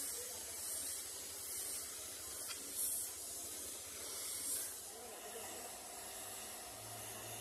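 Gravity-feed compressed-air spray gun hissing as it sprays paint, with two short louder blasts about three and four and a half seconds in.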